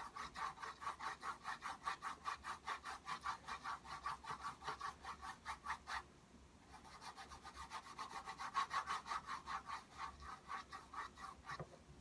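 Paintbrush scrubbing oil paint onto a stretched canvas in rapid back-and-forth strokes, about five a second. There are two spells, with a short break about six seconds in.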